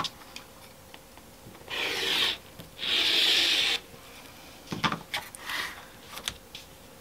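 Rotary cutter blade rolling along the edge of an acrylic quilting ruler, slicing through flannel on a cutting mat in two strokes, the second one longer. A few light knocks and rustles follow.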